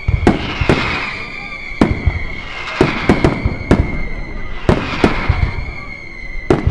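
Aerial fireworks bursting in a quick, uneven series of sharp bangs, about ten in a few seconds, with crackling hiss after several bursts over a continuous high whistle that slides slightly lower.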